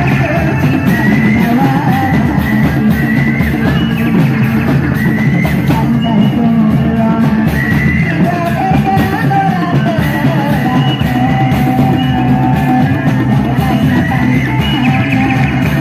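Live amplified music from a reog troupe's band over loudspeakers. A steady beat of drums and accompanying instruments runs throughout, with a high, wavering melody line gliding above it.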